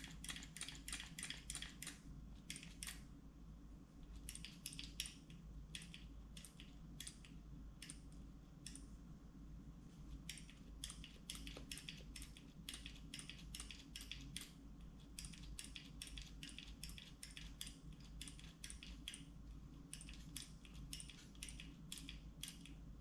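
A hand-worked tube beading tool clicking in quick runs of several light, sharp clicks a second, with short pauses between runs, as it forms a hose bead on the end of a steel fuel line.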